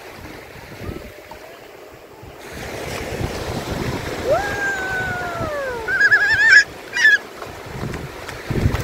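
Small waves washing over shallow water, with a young child's high calls: one long falling call about four seconds in, then a couple of short wavering squeals around six to seven seconds.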